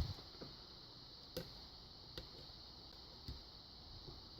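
Faint, sharp clicks, about five spaced roughly a second apart, of a lock pick working the pin tumblers inside a Kwikset pin-tumbler lock cylinder during single-pin picking.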